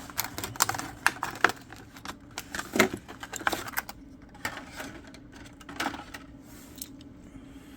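Plastic blister packaging of a Matchbox die-cast car being cracked open: a run of sharp clicks and crackles, thick in the first few seconds and thinning out after.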